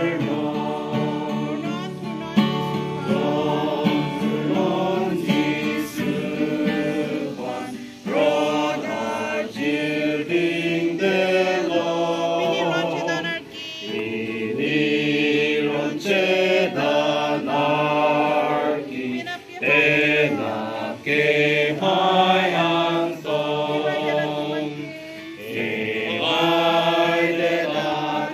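A small mixed group of men and women singing a song together, in phrases of a few seconds with brief breaths between them.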